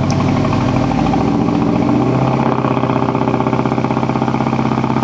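The exhaust of a 2006 Mazdaspeed 6's turbocharged 2.3-litre four-cylinder, just started, on a fast idle that settles lower about two seconds in, with a fast pulsing beat. The owners say the engine has a pretty bad misfire and suspect a failed ignition coil pack.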